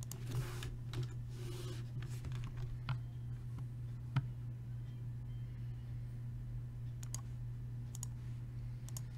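Scattered clicks and taps of a computer keyboard and mouse, a few seconds apart, over a steady low electrical hum.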